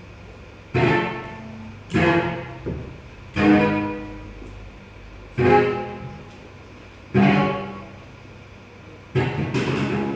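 Plucked-string instrument played in isolated sharp notes or chords, each ringing and dying away, about a second or two apart; the last is a quick flurry of several plucks.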